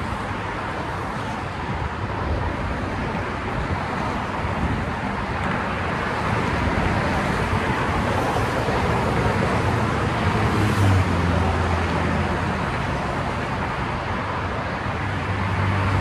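Highway traffic noise: a steady rush of passing cars and trucks, growing louder through the middle with a low engine hum near the end as heavier vehicles go by.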